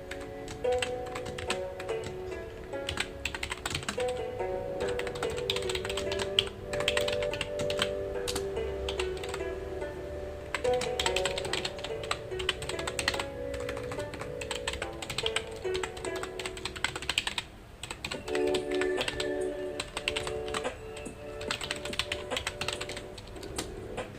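Computer keyboard typing: rapid, irregular keystroke clicks in bursts with short pauses, over soft background music of held notes.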